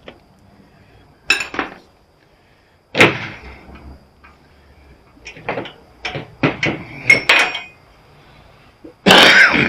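Metal knocks and clanks from tools and parts on a welder being taken apart: irregular sharp strikes, a loud one about three seconds in, a quick run of them in the middle, and a dense clatter near the end.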